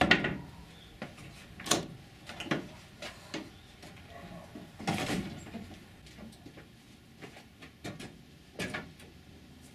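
An old wooden plank shed door and its wooden latch being worked open: a handful of separate knocks and scrapes spread over several seconds, the loudest at the very start.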